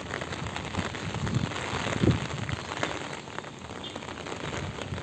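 Steady rain falling on shallow floodwater, with hands splashing in the water and one louder splash about two seconds in.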